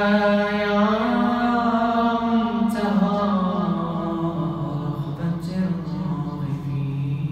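A man's solo voice, unaccompanied, chanting an Arabic du'a (supplication) in long, drawn-out melismatic notes. The melody falls and settles on a low held note near the end.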